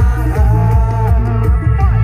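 Loud live music from a Thai rot hae sound truck's speaker stacks: a heavy, rhythmic bass line under a held, wavering melody, with a man singing through a microphone.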